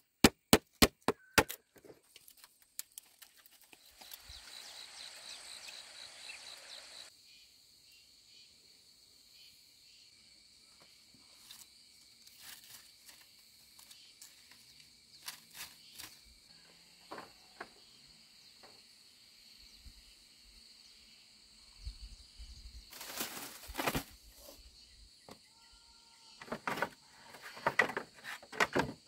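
Machete chopping a green bamboo pole: a quick run of sharp strikes in the first second and a half. Then a steady high insect drone, with knocks and clatter of bamboo poles being handled near the end.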